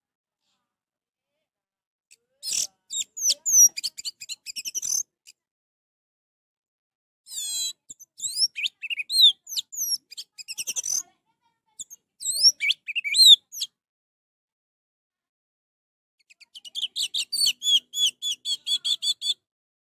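Orange-headed thrush singing in four separate bursts of high, varied whistled phrases and glides, with silence between them. The last burst is a quick even run of repeated notes, about four a second.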